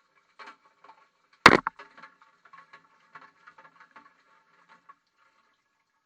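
A GoPro knocking about inside a tumbling washing machine drum, heard from the camera itself: one loud knock about a second and a half in, then a run of lighter irregular taps that stop about five seconds in.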